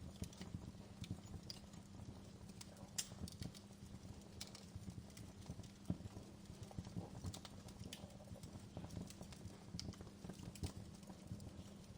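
Wood fire crackling in a fireplace: irregular sharp pops and snaps of burning logs over a low, steady rumble. The loudest pops come about 3 and 6 seconds in.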